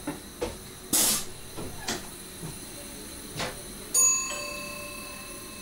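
In a train driver's cab: a short loud hiss about a second in and a few light knocks, then about four seconds in a single chime that rings on and slowly fades.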